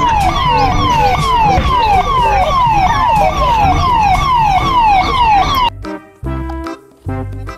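Police siren sounding a rapid repeating falling sweep, about two a second, over a low rumble. It cuts off abruptly about three-quarters of the way through, giving way to upbeat children's music.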